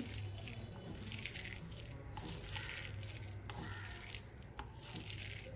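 A hand squeezing and tossing shredded cabbage in a damp flour-and-chilli coating in a bowl: faint, soft mixing strokes about once a second, over a steady low hum.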